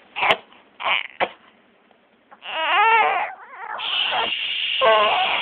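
Young infant crying: a few short fussy cries, then a longer wavering wail about two and a half seconds in and another near the end. A steady hiss joins about four seconds in.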